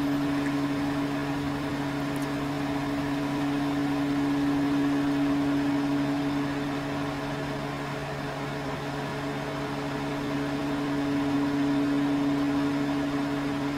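Microwave oven running a heating cycle: a steady electrical hum with a fan whir underneath.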